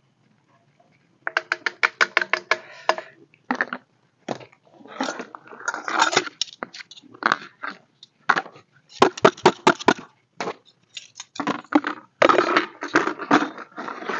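A knife cutting bananas and knocking and scraping on plastic plates: irregular knocks and scrapes, starting about a second in with a quick run of clicks.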